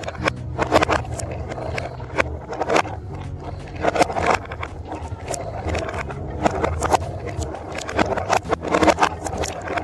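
Glass marbles rolling along a plastic marble-run track: a steady low rolling rumble with many sharp, irregular clicks and clatters as the marbles hit the track pieces.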